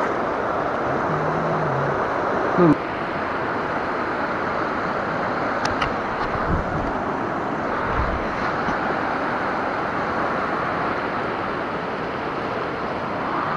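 Steady rush of river water running fast over rocks, with a sharp knock about two and a half seconds in and a few fainter bumps later.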